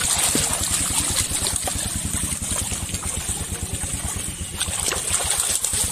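Water splashing and churning as a mass of large fish thrashes in a net, over a small engine running steadily with a fast, even low pulse.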